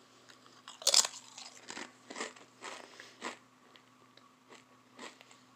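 A Tapatio hot-sauce-flavoured tortilla chip bitten with a sharp crunch about a second in, then chewed with a run of crisp crunches that grow fainter and sparser toward the end.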